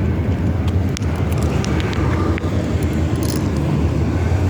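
Steady low rumble of a motor vehicle on the street, with a few light clicks about a second to three seconds in.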